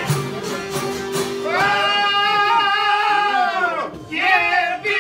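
Albanian folk ensemble playing: long-necked plucked lutes, fiddle and frame drum. A singer comes in about one and a half seconds in with a long held, wavering note that falls away near four seconds, then starts a new phrase just before the end.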